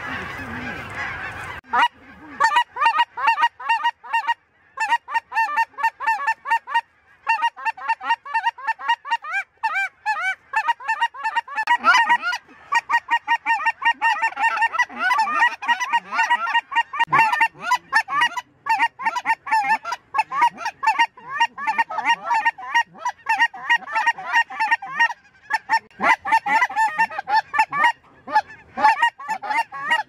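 A dense chorus of snow geese calling, many birds yelping over one another almost without a break. A brief rush of noise comes first, before the calling starts about two seconds in.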